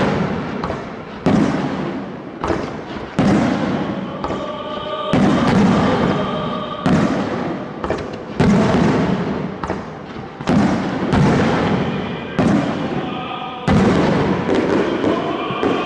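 Aerial firework shells bursting in close succession, about a dozen bangs with roughly a second between them, each trailing off into a rumbling echo. Music accompanies the display underneath.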